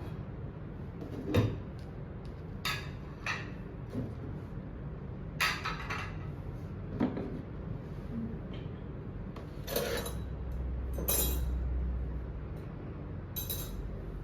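Breakfast dishes being cleared: plates, cutlery and a glass clinking and clattering together in a dozen or so separate knocks.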